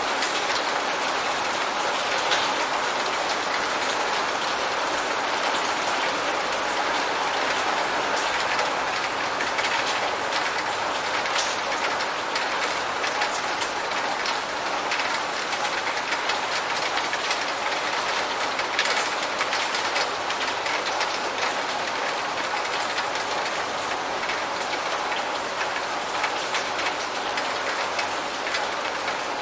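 Steady rain falling, with drops pattering on a surface and scattered sharper ticks.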